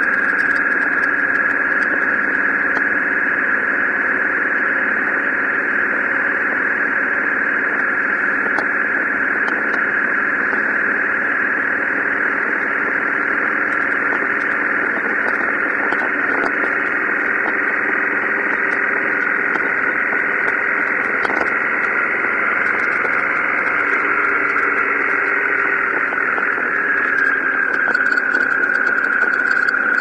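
Motorcycle engine running at a steady cruise under a loud, steady rush of wind noise, heard from the riding bike. The engine note rises a little after the middle and eases back near the end.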